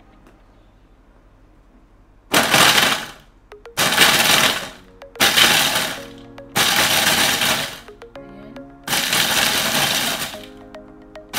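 Food processor run in short pulses, five bursts of about a second each with brief pauses between, grinding graham crackers, biscuits and almond flakes into crumbs.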